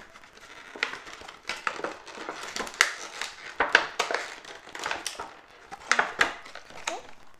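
Scissors snipping and packaging crinkling and rustling as a doll outfit is cut free of its box: irregular sharp snips and short rustles.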